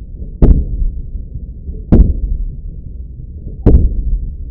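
Slowed-down gunfire from a Shrike 5.56 belt-fed AR-15: three deep booms about a second and a half apart, each trailing off into a continuous low rumble.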